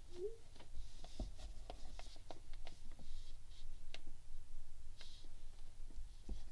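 Wax crayon being scribbled on paper in quick short strokes, a dry scratching broken by many light ticks and taps.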